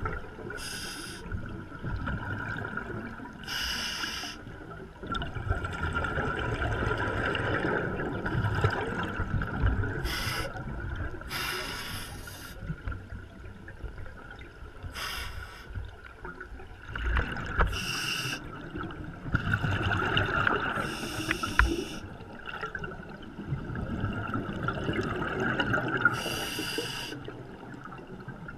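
Scuba diver breathing through a regulator underwater: brief hisses recurring every two to three seconds, with bubbling and gurgling between them.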